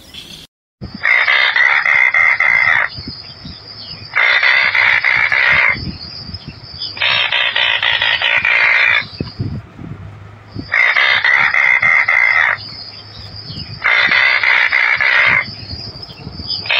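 Anhinga calling: a rapid clicking, rattling call about two seconds long, given five times with short pauses between, and a sixth starting at the end.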